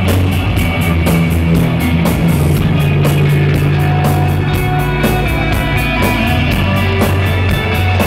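Rock band playing live and loud, with no vocals: deep sustained bass guitar notes, electric guitar and drums, with cymbal hits keeping a steady beat of several strokes a second.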